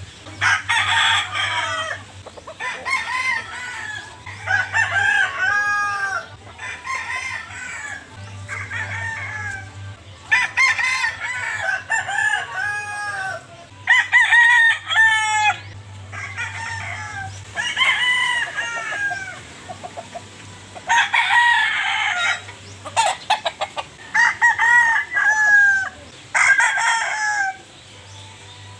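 Several roosters crowing one after another and overlapping, each crow an arched cock-a-doodle-doo phrase, with a steady low hum beneath.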